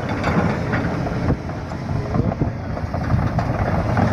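Heavy diesel machinery engine running steadily, with wind noise on the microphone.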